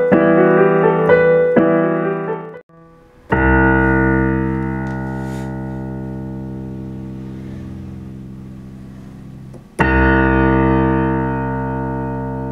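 Grand piano voice of a Roland E-X50 arranger keyboard played live through its built-in speakers: a quick run of notes, then a full chord struck about three seconds in and held, fading slowly for about six seconds, and a second chord struck near the end that rings on the same way, showing off the voice's long sustain.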